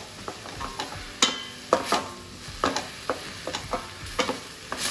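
Wooden spatula stirring and scraping chopped tomatoes and onions in a stainless-steel pan, knocking against the metal irregularly about twice a second, over a faint sizzle of frying on high heat.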